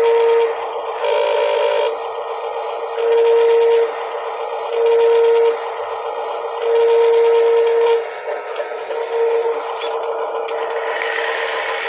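Toy truck's electronic horn honking in about five short blasts of one steady tone, with a brief warbling tone after the first, over a continuous whir. A different mechanical whir takes over near the end.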